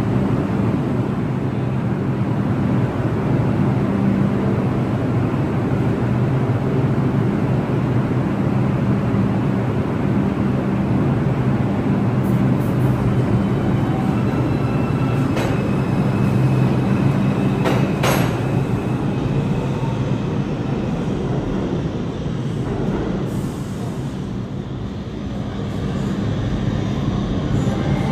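New York City Subway R142-series train running in the station with a steady rumble and a low, even hum. There are faint brief wheel squeals, and a sharp click comes about two-thirds of the way through.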